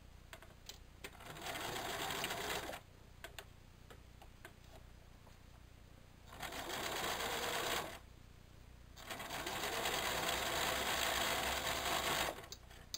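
Electric sewing machine sewing a zigzag stitch through terry towelling, in three runs: two short ones, then a longer one near the end. Each run speeds up as it starts, and there are short pauses with a few light clicks between runs.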